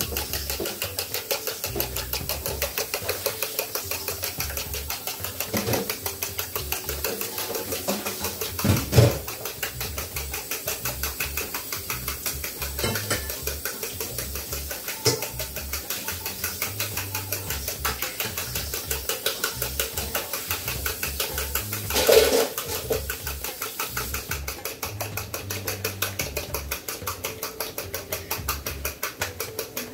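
Four eggs being beaten by hand with a fork in a bowl: a fast, even run of strokes clicking against the bowl, with a couple of louder knocks about nine seconds in and again after twenty seconds. The eggs are being whipped hard in the hope that they will froth up and grow.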